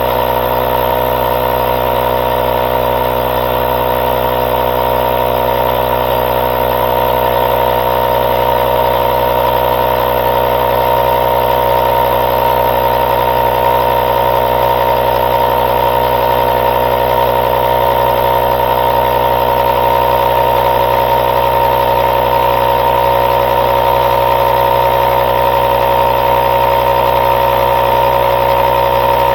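Small 12V air compressor built into a UTRAI Jstar 5 jump pack running steadily as it inflates a 12-inch mini truck tire toward a 24 PSI preset: a constant motor-and-piston hum that grows a little louder as it goes.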